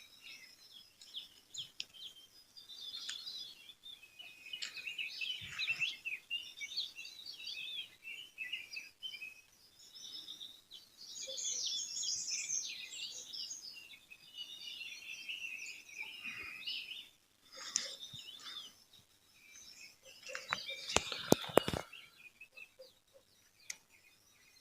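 Several songbirds chirping and trilling, with calls overlapping. About 21 seconds in comes a quick cluster of sharp clicks, the loudest sound.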